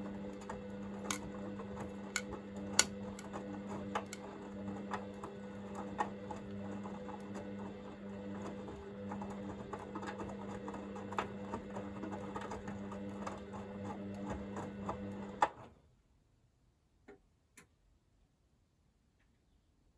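Front-loading washing machine (Hoover VisionDynamic) tumbling a small load during the heat-to-40 °C wash: the drum motor hums steadily with irregular clicks and taps. The drum stops about fifteen seconds in, and two faint clicks follow.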